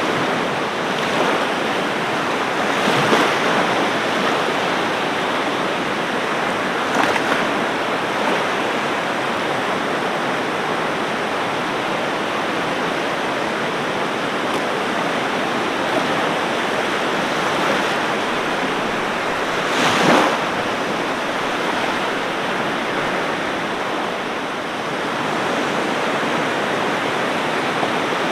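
Ocean surf washing steadily onto a beach, a continuous wash of water with a few brief swells as waves break, the loudest about two-thirds of the way through.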